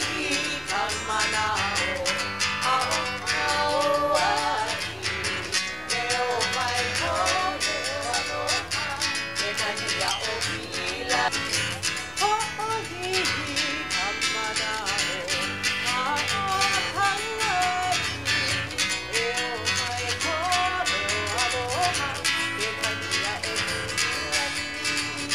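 Background music: guitar-led, with a steady strummed rhythm under a wavering melody line.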